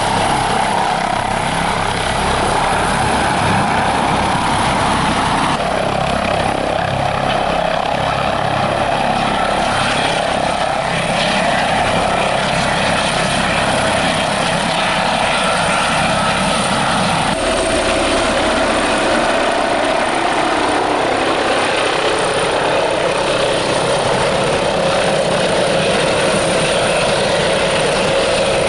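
Airbus ACH145 five-bladed helicopter hovering close to the ground: the loud, steady rotor and turbine noise of its twin Safran Arriel 2E turboshafts, main rotor and Fenestron shrouded tail rotor. The sound changes abruptly about six and about seventeen seconds in.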